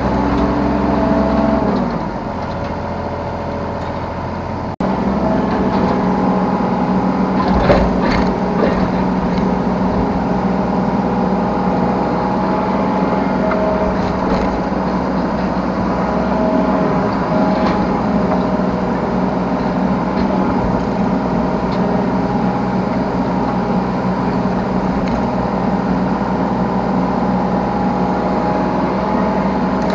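Yanmar B3 Sigma 3-tonne mini excavator's diesel engine running steadily under hydraulic work, heard from the operator's seat, with a few knocks, the loudest about 8 seconds in.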